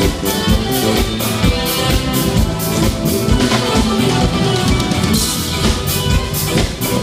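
Live band playing amplified music during a sound check, with a steady drum-kit beat under guitar and other instruments.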